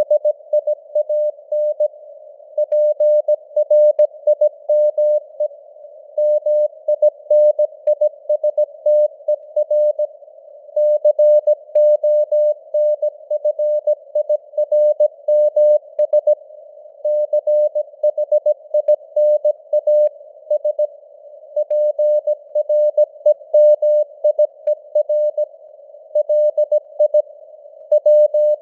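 Morse code (CW) sent at 17 words per minute: a single mid-pitched tone keyed on and off in dots and dashes, with short pauses between letters and words. It sits in simulated radio receiver hiss, and the signal strength fades up and down (QSB).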